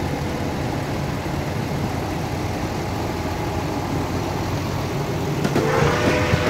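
Tractor diesel engines, a New Holland T7 passing close by and a second tractor behind it, running steadily at low speed as they drive past. Near the end a louder, higher note rises and then holds.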